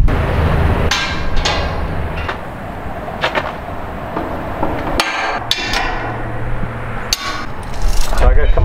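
Sharp metal clacks of a high-lift farm jack being worked, its handle and climbing mechanism clanking on the perforated steel standard, about seven strikes at irregular intervals.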